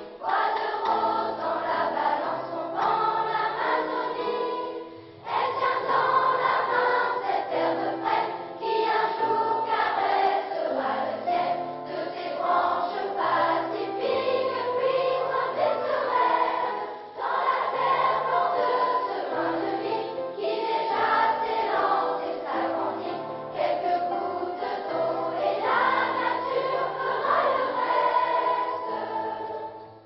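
Children's choir singing with orchestral accompaniment, low sustained notes under the voices. The phrases break briefly about five seconds in and again around seventeen seconds.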